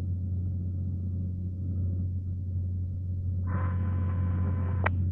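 Cessna 182's engine and propeller running steadily as a low drone heard through the cockpit intercom. About three and a half seconds in, a brief buzzing tone lasting about a second and a half cuts in and ends with a sharp click.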